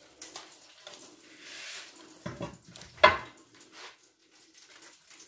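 Kitchen handling sounds: light clinks and rustles, a soft hiss, and a sharp knock of dish or utensil about three seconds in, the loudest moment.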